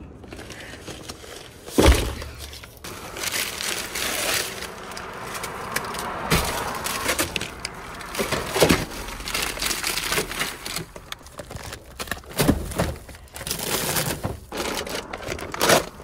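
Rustling and crinkling of things being handled, with several short sharp knocks along the way.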